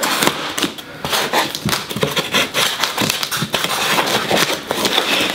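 Scissors cutting through the packing tape and plastic wrap on a cardboard box, a dense run of quick crackling clicks and plastic rustling.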